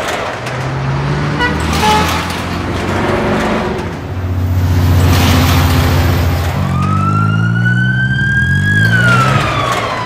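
Cartoon sound effects of rescue vehicles pulling out: engines running with road noise, joined about two-thirds of the way in by a siren tone that rises slowly and then falls away near the end.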